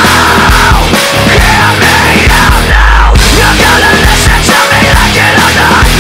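Loud hard rock music.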